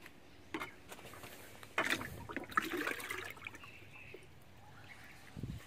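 Water splashing and trickling at a small garden pond, in uneven bursts, loudest from about two to three seconds in.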